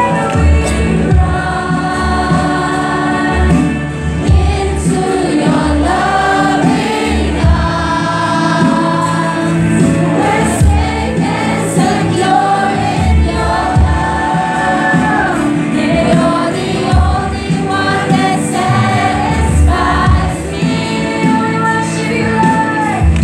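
A group of voices singing a slow gospel worship song with band accompaniment: long held sung notes over a steady bass beat.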